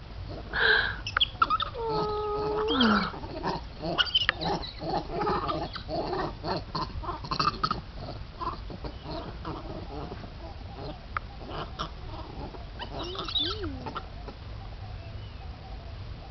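Monkeys calling: one held call about two seconds in that drops in pitch at its end, a stretch of scattered clicks and rustles, and a couple of short rising-and-falling calls near the end.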